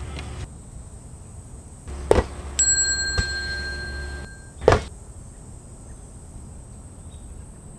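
A steady high ringing tone lasting about two seconds, with a couple of sharp knocks, then a loud thump as a large inflatable ball strikes.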